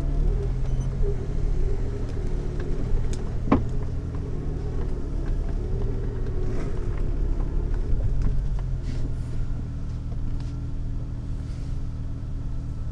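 Jeep Wrangler TJ engine running steadily at low speed while crawling off-road, with one sharp knock about three and a half seconds in.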